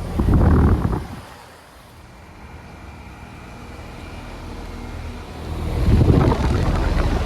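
Outdoor air conditioner condenser unit running in cooling mode, a steady machine hum, broken twice by loud rumbling surges of noise, the first about a quarter-second in and the second about five and a half seconds in.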